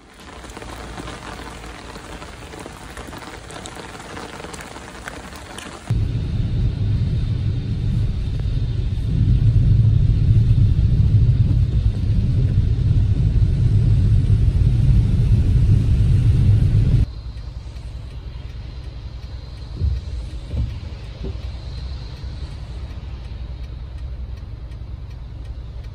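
Rain pattering on a car's windows and body, heard from inside the car. About six seconds in, a loud low road rumble from the moving car rises over it for some ten seconds, then drops back to rain over a quieter hum, with a couple of short knocks about twenty seconds in.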